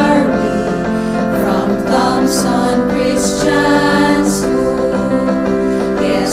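A choir singing the alma mater song in held chords.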